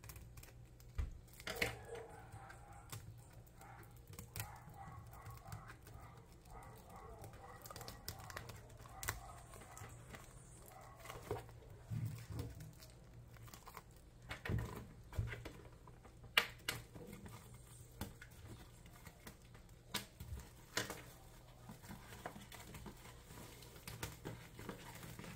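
Plastic shrink wrap crinkling and tearing as it is picked open with a pen and peeled off an album box, with scattered light clicks and taps from handling.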